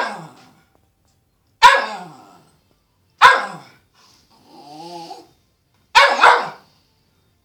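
Cairn terrier barking sharply, single barks about a second and a half apart, then a quick double bark near the end. A quieter, longer drawn-out sound comes in the pause about halfway through.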